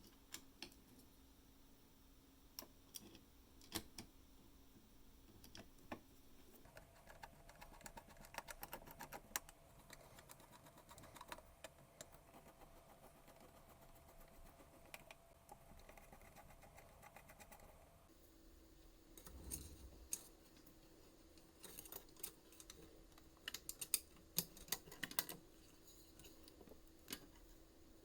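Faint, scattered clicks and light taps of small parts and tools being handled during hands-on repair work, in quick clusters at times, over a faint steady hum that shifts pitch twice.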